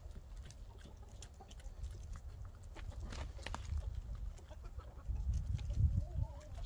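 Backyard hens clucking, with a short wavering call near the end. A low rumble runs underneath and is loudest about five to six and a half seconds in.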